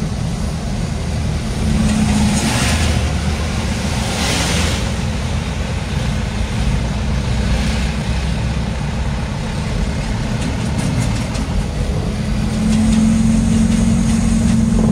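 Diesel engine of a loaded sand-hauling truck running steadily on the road, with a low rumble and a steady drone that comes in briefly at about two seconds and again near the end. Two short hisses sound about two and a half and four and a half seconds in.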